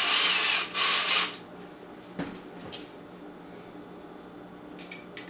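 Cordless drill driving a screw into a plastic bearing block. It runs in two short spells, with a brief dip between them, and stops about a second and a quarter in. After that come a few light clicks and knocks as the part and hardware are handled.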